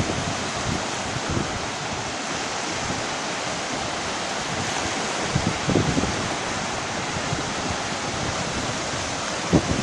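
Black Sea surf washing steadily onto the shore, a continuous rush of waves, with a few low thumps of wind on the microphone.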